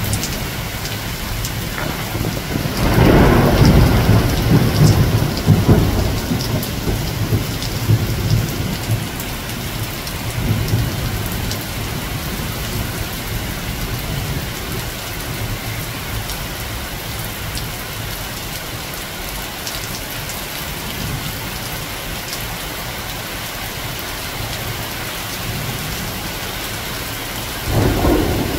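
Thunderstorm: steady rain falling on the leaves of an apple tree, with a peal of thunder about three seconds in that rumbles on for several seconds, and another peal breaking near the end.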